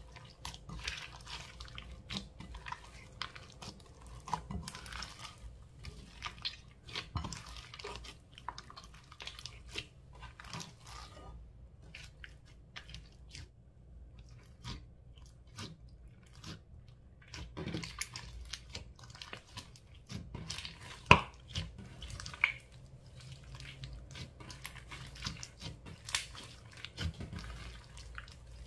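Slime being squished and worked by hand: a run of small sticky clicks and crackles. The sounds thin out in the middle, and there is one louder click about two-thirds of the way in.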